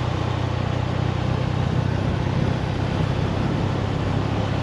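Motorcycle engine running steadily at cruising speed, with wind and road noise over it.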